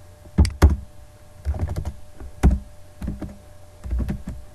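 Keystrokes on a computer keyboard, typed irregularly in small groups with short pauses between, some strokes sharp with a low thud.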